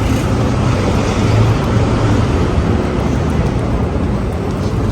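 Steady low rumble of a running vehicle engine, mixed with wind noise on the microphone.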